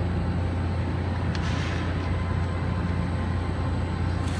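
Steady low background hum, with a brief soft scrape about a second and a half in as a clamp is fitted around the pump casing.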